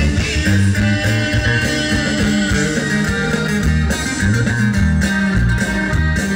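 A live norteño band playing an instrumental stretch over a loud PA: accordion, sousaphone bass line, guitars and drums.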